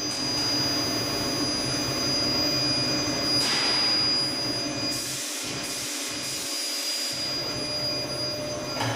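Tunnel induction heating machine running: a steady hum with a constant high-pitched whine, and bursts of hiss about three and a half seconds in and again from about five to seven seconds.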